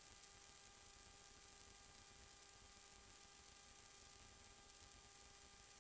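Near silence: room tone, a faint steady hiss with a faint hum.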